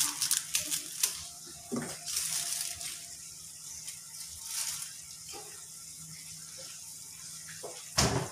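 Coconut milk squeezed from a plastic bag into a pan of simmering curry, with crinkling and pouring in the first second, then the curry bubbling steadily in the frying pan on a gas stove. A single sharp knock about eight seconds in.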